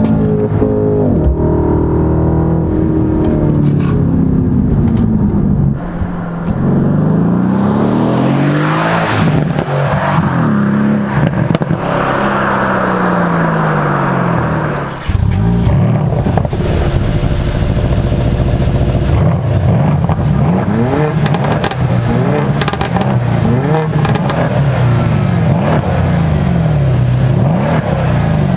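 Mercedes-AMG C63 Coupe's 4.0-litre twin-turbo V8 revving and accelerating, its pitch rising and falling several times. Near the end the pitch climbs in a series of short rises.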